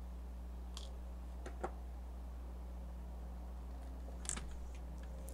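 A few faint, light clicks and taps as a laptop's LCD panel and its small parts are handled, over a steady low hum.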